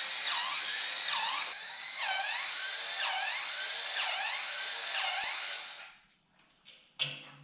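Cordless battery grease gun running, its motor whining with a pitch that swoops down and back up about once a second. It stops about six seconds in, and a couple of sharp clicks follow near the end.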